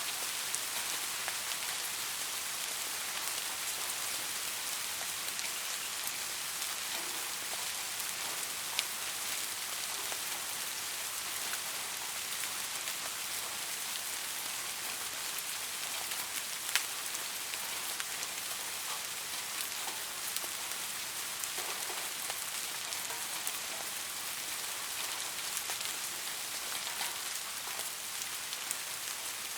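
Steady rain falling on a surface: an even, dense hiss with scattered sharper ticks of single drops.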